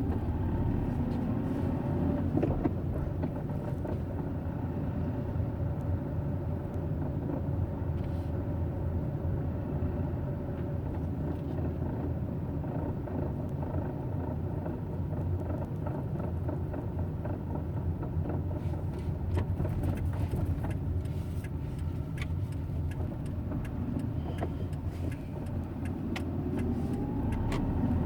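Hyundai Eon car running at low rpm with a steady low rumble. A whine shifts in pitch near the start and again near the end. This is the low-rpm grinding noise the owner is documenting as a fault.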